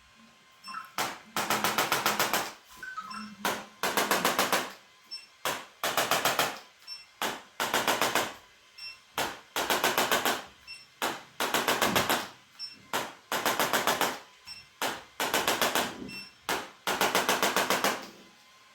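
A rapid mechanical rattle switched on and off in repeated bursts, often a short burst followed by a longer one of about a second, with brief pauses between.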